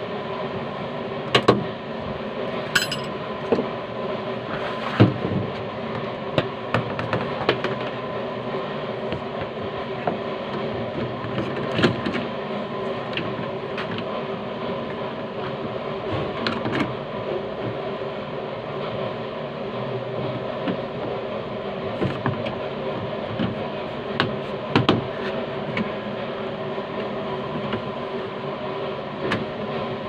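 Scattered clicks and knocks of hand work on a Suzuki Carry's inner door trim and door handle, over a steady droning hum.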